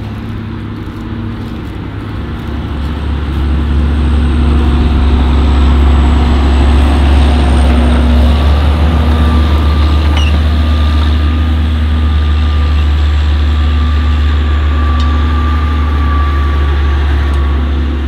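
Large farm tractor's diesel engine running steadily under load while ploughing: a deep, even drone that grows louder a few seconds in. A faint steady whine joins about halfway through.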